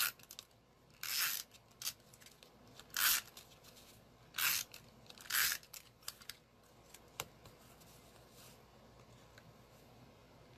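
Paper or cardstock being handled on the craft table: about five short scraping, rasping strokes in the first six seconds, with a couple of light clicks in between. The table then falls quiet apart from faint room hiss.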